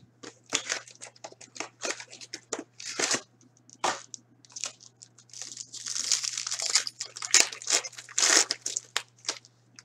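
Hands opening a hockey card box and its wrapped pack: an irregular string of crinkling, rustling and small tearing sounds of cardboard and wrapper, busiest about six to seven seconds in and again just after eight seconds.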